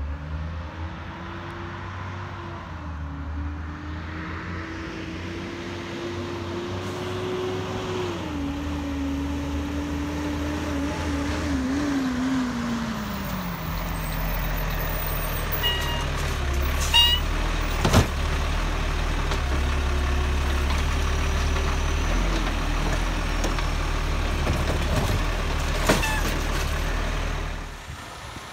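Garbage truck's diesel engine running as the truck approaches, its pitch falling in steps as it slows, then settling to a steady low rumble. A few sharp knocks ring out over the engine about two-thirds of the way through and again near the end.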